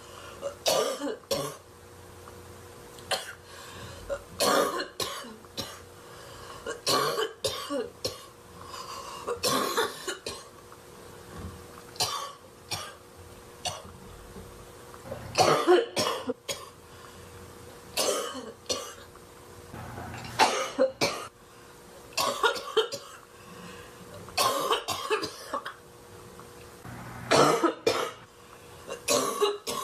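A woman's barking cough: harsh coughs in groups of two or three, a new group every two to three seconds.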